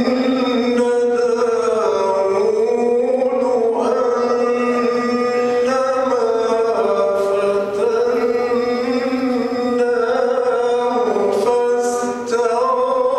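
A male Qari reciting the Quran in melodic tajweed style: long held notes with slow, ornamented turns in pitch, breaking off briefly near the end before going on.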